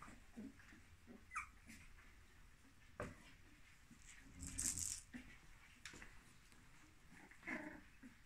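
A 26-day-old puppy playing among plush toys: a few faint, short squeaks and whimpers, scattered light knocks, and a brief rustle about halfway through.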